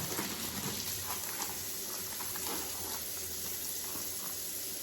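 Kitchen tap running in a steady hiss, water rinsing ground meat, with a few faint knocks of handling in the first couple of seconds.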